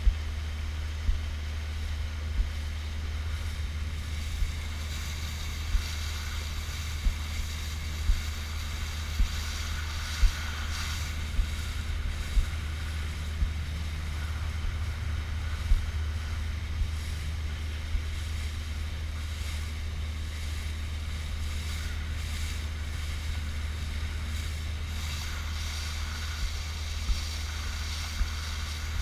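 Motorboat running across open water, with steady wind rumble on the microphone and water rushing past the hull. Short thumps come about once every second or so as the hull slaps the small waves.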